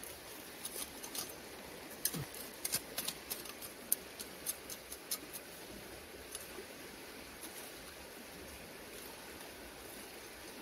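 Short dry scrapes and clicks of a small hand hoe working gritty, stony soil around a metal mole trap. A quick run of them comes in the first half, then only faint scuffing.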